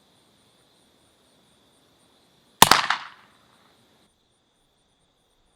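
One suppressed shot from a Marlin 1894 .44 lever-action carbine with a Griffin Armament Resistance 45 suppressor, firing a subsonic 200-grain .44 Special load at about 900 feet per second, heard from about 25 yards downrange. It is a single sharp report about two and a half seconds in, fading within about half a second.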